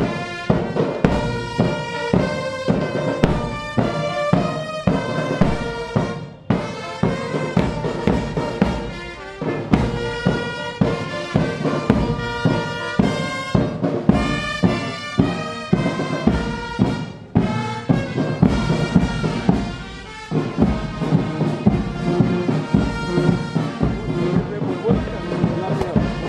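Military brass band playing, brass instruments over a steady beat of bass drums, with short breaks between phrases.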